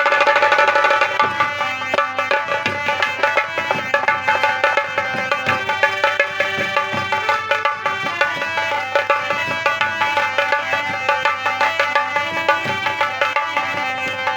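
Instrumental interlude of Indian folk music: quick, steady drumming under a sustained melody line, with no singing.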